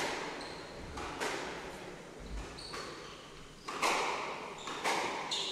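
Squash rally: the ball is struck hard four times, sharp hits each echoing briefly in the court, the last two about a second apart. Short high squeaks of court shoes on the wooden floor come between the hits.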